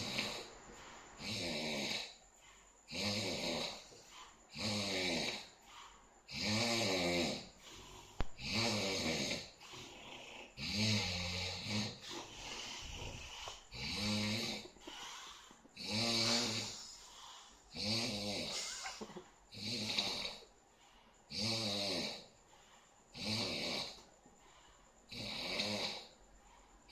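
A sleeping person snoring, one loud snore roughly every two seconds, each lasting about a second.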